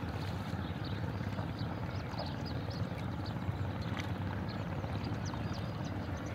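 Lake ambience from a moving rowing boat: a steady low rumble, with small birds chirping busily over it and a few light knocks.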